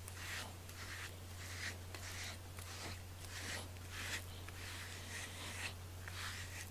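A plastic bristle brush stroking through a cat's fur, faint brushing strokes about two a second, over a low steady hum.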